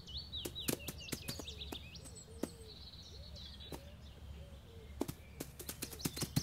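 Garden ambience of small birds chirping over and over, with scattered light taps and clicks throughout.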